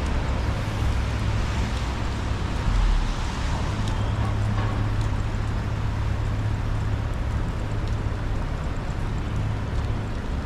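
Traffic on a wet city street in the rain: a steady low rumble of vehicles under an even hiss of tyres and rain, with a brief low thump about three seconds in.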